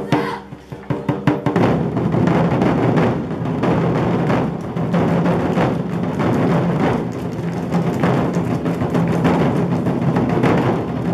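Large Chinese barrel drums of a twenty-four festive drums ensemble: a few separate, loud strikes in the first second and a half, then a dense, continuous drum roll from many drums at once.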